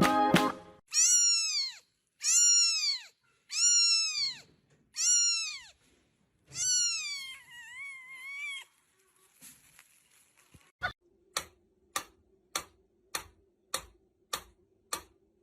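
A cat meowing five times, short meows that rise and fall in pitch about a second and a half apart, the last one longer and wavering. Then a regular series of sharp clicks, a little under two a second.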